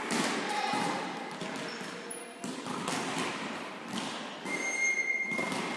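Volleyballs thudding in a large, echoing sports hall, scattered hits and bounces with faint voices, and a brief high squeak about four and a half seconds in.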